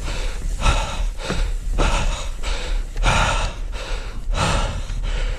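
A person's quick, heavy breathing close to the microphone, each breath a rush of air about every two-thirds of a second, over a steady low rumble of wind on the microphone.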